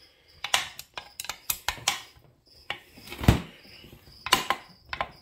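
Clinks and knocks of a screwdriver and a Husqvarna 266XP chainsaw crankcase being handled and turned over on a workbench, with one heavier thump about three seconds in as the case is set down.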